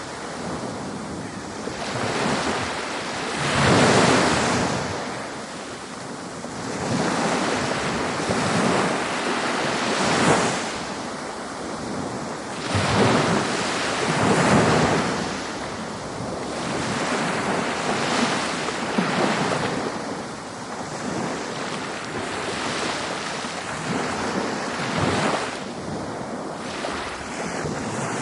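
Ocean waves breaking and washing up a beach, the surf swelling and ebbing every few seconds.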